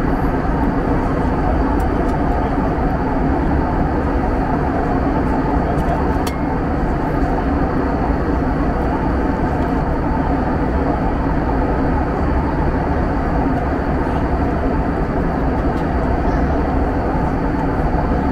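Steady cabin drone of an Airbus A321 in flight, engine and airflow noise heard inside the cabin, with a faint high whine over it. One small click about six seconds in.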